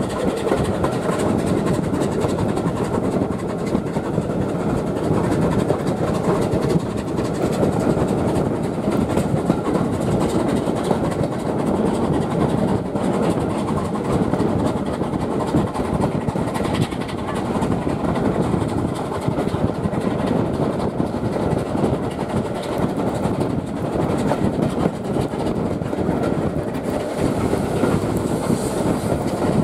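Steam-hauled passenger train running at speed, heard from an open carriage window: a steady rumble of wheels on the rails with the clatter of the coaches.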